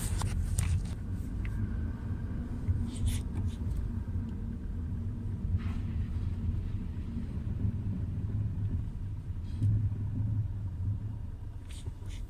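Low, steady rumble of a Hyundai Solaris driving, heard from inside the cabin, with a few faint clicks.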